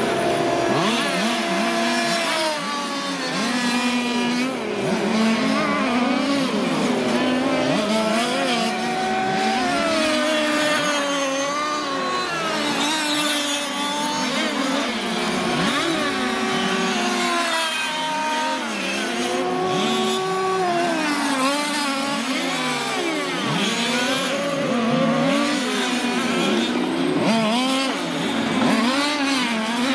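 Several 1/5-scale petrol radio-controlled race cars lapping together, their small two-stroke engines overlapping and rising and falling in pitch again and again as they accelerate and back off through the corners.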